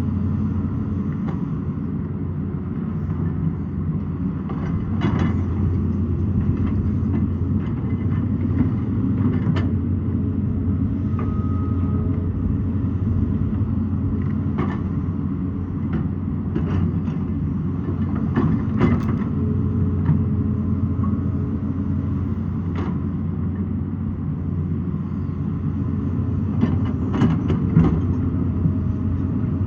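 Excavator's diesel engine running steadily, with scattered sharp knocks and clinks of rock and metal every few seconds.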